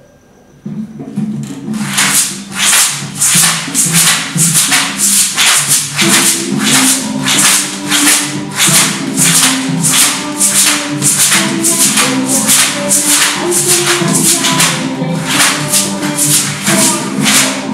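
Homemade shakers made of filled plastic bottles shaken in a steady rhythm, about two to three shakes a second, starting about two seconds in, along with a song that starts playing just before.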